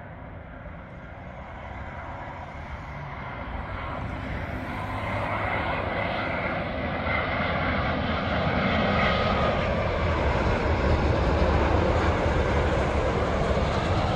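Airbus A350-900's Rolls-Royce Trent XWB turbofans on landing approach, a steady jet rumble with a high whine on top, growing steadily louder as the airliner comes closer.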